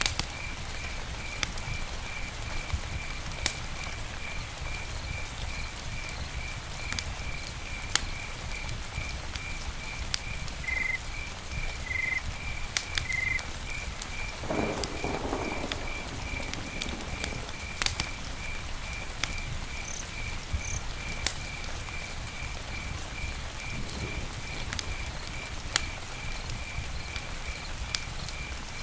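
Campfire crackling, with scattered sharp pops and snaps over a steady hiss. An evenly pulsed high chirping runs underneath, with a brief lower call about halfway through.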